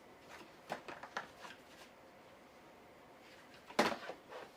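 Light clicks and rubbing as the folding table's tabletop is worked onto its base, then a louder cluster of sharp clicks near the end as the tabletop snaps down into place.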